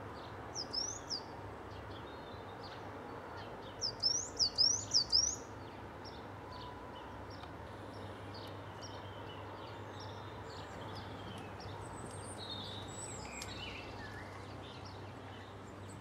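Outdoor garden ambience: a steady low background hiss with small songbirds chirping, a few short upswept chirps near the start and a quick run of about five louder ones about four seconds in, then fainter scattered calls.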